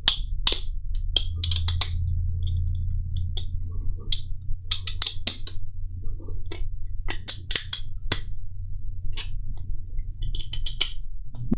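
Irregular sharp clicks and snaps of hard plastic as support material is cracked and picked off a 3D-printed part by hand, over a steady low hum.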